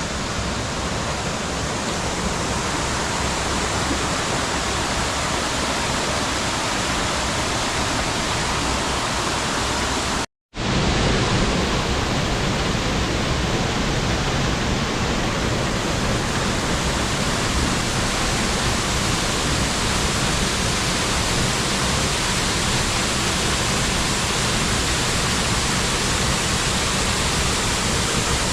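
Waterfall: a loud, steady rush of falling water. It cuts out for a split second about ten seconds in, then comes straight back.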